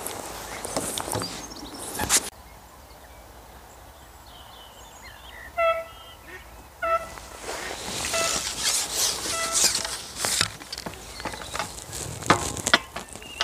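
Fishing tackle being handled on the platform: a landing net and a pole, in short rustling, clattering bursts at the start and again through the second half. In the quieter middle, a bird calls several times in short, honking notes.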